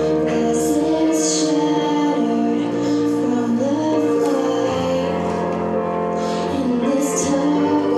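Music: a song with a sung vocal line over sustained accompaniment, with held notes and a change of chord about halfway through.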